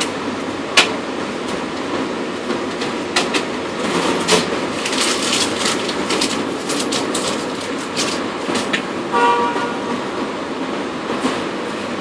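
Steady background noise of a parking facility, with scattered clicks and knocks and a short horn-like toot just after nine seconds in.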